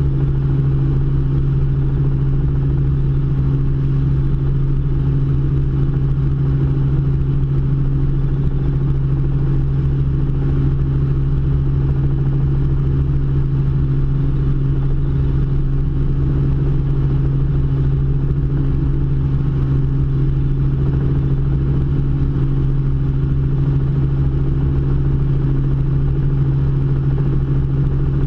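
Robinson R44 helicopter in cruise flight heard from inside the cabin: the engine and rotors make a loud, steady drone with a constant low hum that does not change.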